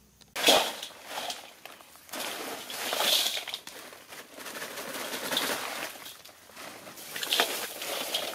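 Ice tipped from a plastic bag into a stainless-steel bowl, clattering and crunching in several noisy bursts, with hands then pushing the ice around in the bowl.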